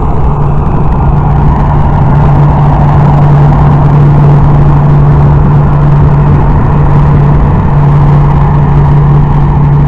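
Loud, steady engine drone with a constant low hum, holding the same pitch throughout.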